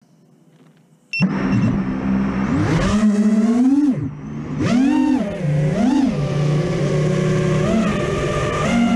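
Four brushless motors of a 6S FPV racing quadcopter (1922KV Hyperlite motors, Butter Cutter props), heard from the onboard camera. They start abruptly about a second in with a couple of short high beeps, then run as a steady whine whose pitch swoops up and down with each throttle punch, four times.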